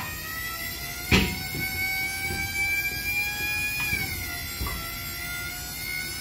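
Electric hydraulic jack pump powered by an 18-volt Milwaukee battery, running with a steady whine as it lifts a roughly 3,000-pound race car. The pitch creeps up slightly, then dips a little about four seconds in. A sharp click sounds about a second in.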